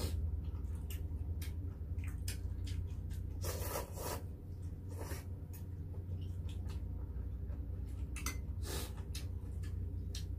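Close-up eating sounds of beef short rib soup: wet chewing and lip smacks from gnawing meat off a rib bone, with two longer slurps of broth, about four seconds in and near nine seconds. A steady low hum runs underneath.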